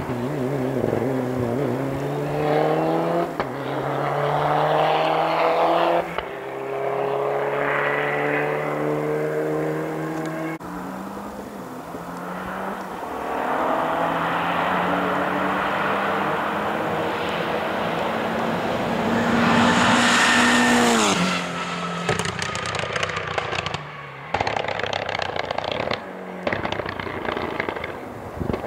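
Rally car engine at full throttle, its pitch climbing and then dropping at each upshift several times. About two thirds through it is loudest and closest, then its pitch falls away.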